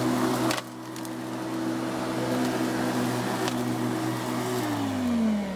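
Bosch ARM 37 electric lawn mower running steadily with an even hum, its motor fitted with a new lower bearing. The sound drops sharply in level about half a second in, and near the end the motor is switched off and its whine falls in pitch as the motor and blade spin down.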